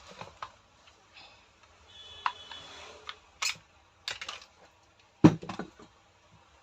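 Rotary hammer parts being handled and fitted on the bench: a run of small clicks and metallic knocks, a brief squeaky scrape about two seconds in, and a sharp knock just after five seconds.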